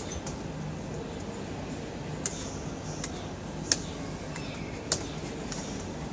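Hands slapping the round target pads of a BATAK reaction-training wall: sharp smacks at an uneven pace, roughly one a second, the loudest two near the middle, over a steady hall hum.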